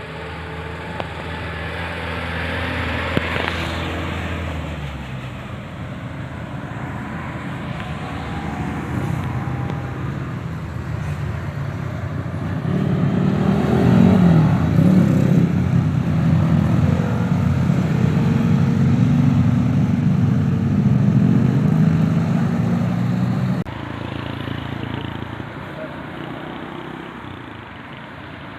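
A large bus's diesel engine running as the bus passes. It builds to its loudest about halfway through, holds there for several seconds, then falls away suddenly near the end.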